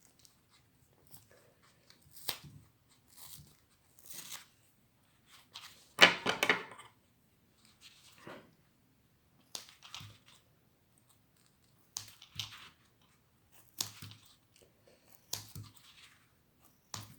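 Plastic being cut by hand to take out a small piece: a string of short, separate cutting sounds every second or two, the loudest about six seconds in.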